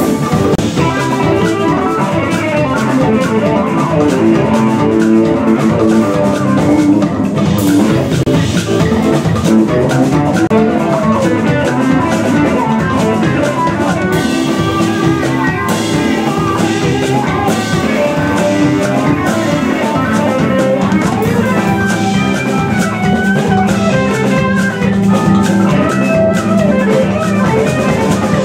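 Live band playing, led by electric guitars and a drum kit, with hand drums in the mix.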